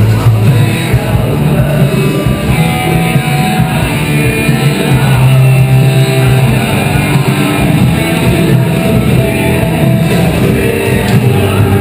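Loud rock music with guitar, laid over the footage.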